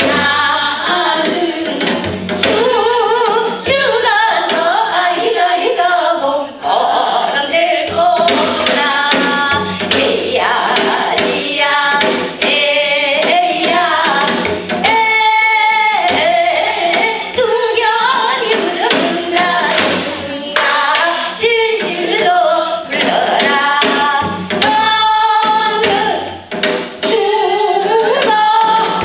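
A group of women singing a Korean folk song together, with held notes, over a drum beaten in a steady rhythm.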